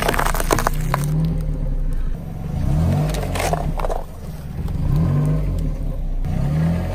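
Car tyre rolling slowly over small wrapped and paper objects, crushing them with crinkling and crackling, over the low hum of the car's engine. The crackling comes in bursts near the start and again about halfway through.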